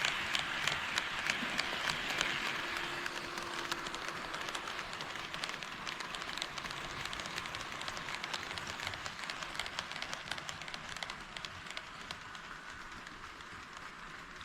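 HO-scale KATO D51 model steam locomotive and train running on KATO Unitrack, wheels giving a rapid, uneven clicking over the rail joints over a steady running hiss; the sound slowly fades as the train moves away.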